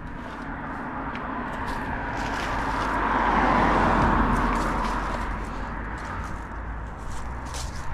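A car passing on the road, its tyre and engine noise swelling to a peak about halfway through and then fading away, with a few light clicks and scrapes close by.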